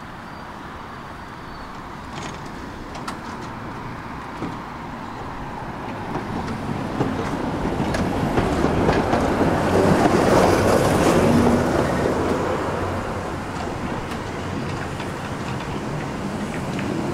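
Tram passing on street track: its rolling noise builds to its loudest about ten seconds in, then eases off, with scattered clicks.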